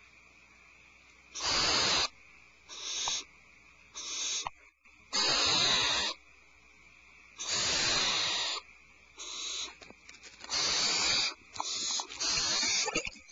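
Owl making a series of harsh hissing calls, about nine in all, each lasting up to about a second, with short quiet gaps between them.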